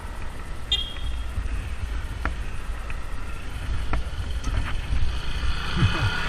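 Wind noise and road rumble on a helmet-mounted action camera while riding a mountain bike over rough road, with a few sharp clicks and rattles from the bike. A steadier hum comes in near the end.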